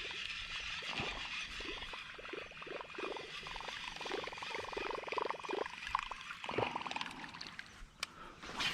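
Water splashing and trickling around a kayak in a run of small, irregular splashes about twice a second.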